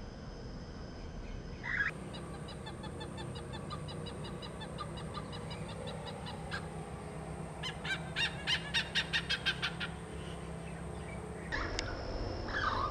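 Oriental pied hornbill calling: a rapid series of short, honking notes, first a softer run, then a louder run of about five notes a second a little past the middle.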